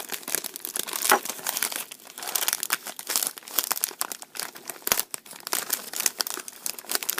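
Gift bag and its tissue-paper wrapping crinkling and tearing as they are pulled open by hand, in quick irregular rustles.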